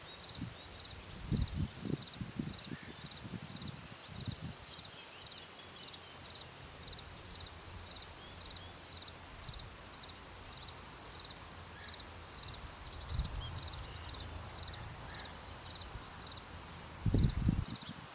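Insects chirping steadily in a high, evenly pulsing chorus. A few low rumbles come through about a second in and again near the end.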